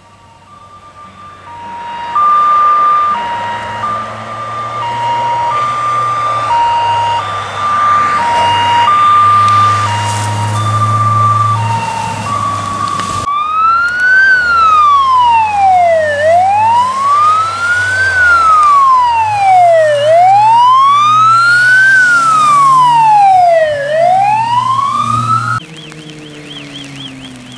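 Electronic siren on an approaching rally safety car: a two-tone hi-lo siren that grows louder, switching about 13 seconds in to a slow rising-and-falling wail about every four seconds, which cuts off suddenly near the end, leaving a faint fast warble. The car's engine runs underneath.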